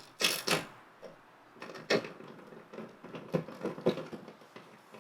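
Sharp metallic clicks and clunks of hand tools working the 10 mm bolts on a car's inner door panel, in uneven bursts, loudest near the start and again between about three and four seconds in.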